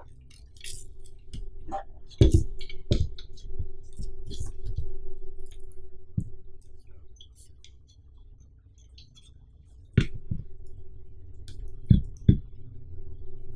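Black metal tripod banner stand being handled as its legs are spread and it is stood up: a string of sharp clicks and knocks from the metal legs and joints. The loudest come about two seconds in, at about ten seconds, and twice close together near twelve seconds.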